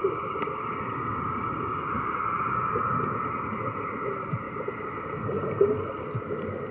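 Underwater noise around sub scooters: air bubbles gurgling and crackling over a steady hum, with a few short pops.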